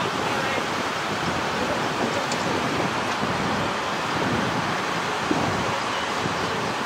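Steady drone of idling fire-department vehicles, an ambulance and a fire engine, mixed with road traffic and wind on the microphone.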